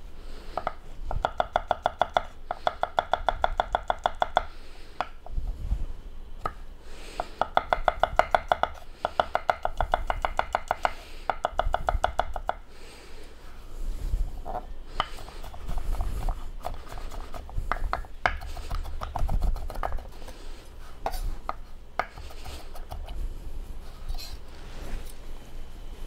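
Kitchen knife mincing fresh garlic on a wooden cutting board: three fast, even runs of rapid knife strikes with a ringing tone under them, then slower, scattered taps and scrapes of the blade on the board in the second half.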